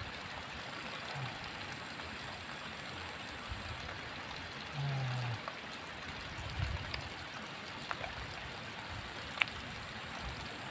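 Steady, faint trickle of running water in a flooded rice paddy, with a short low hum of a man's voice about halfway through and a few small clicks near the end.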